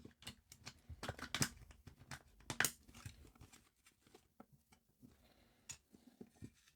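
Handling noise from working on a handheld CB radio by hand: a quick run of clicks, taps and rustles of small plastic and metal parts, busiest and loudest in the first three seconds, then a few scattered clicks.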